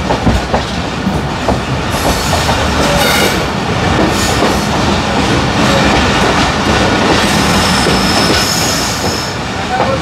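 Passenger train coaches running along the line: a steady rumble of wheels on rails with clickety-clack from the rail joints. Faint thin wheel squeals come through about three seconds in and again in the second half.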